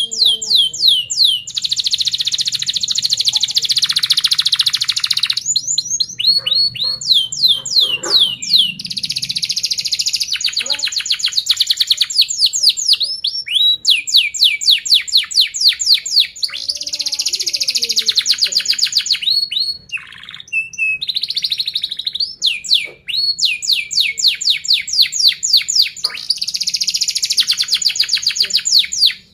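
Domestic canary in full song: a long, fast run of rapid repeated chirps and tight rolling trills, with a brief pause about twenty seconds in.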